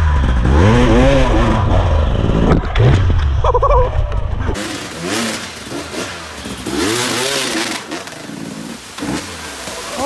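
Enduro dirt bike engines revving in repeated throttle bursts, each rising and falling in pitch, over the hiss of rushing creek water. A heavy low rumble drops away about four and a half seconds in, after which the revving goes on, quieter.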